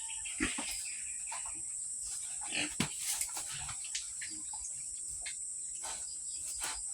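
Pigs giving a few short grunts, with scattered knocks, over a steady high-pitched insect drone.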